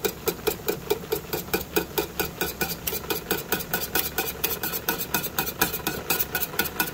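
Wire whisk stirring boiling birch syrup in a metal pot, clicking against the pot in a quick, even rhythm of about five or six strokes a second, over a steady low hum. The syrup is kept moving because it is now very high in sugar and would scorch if left still.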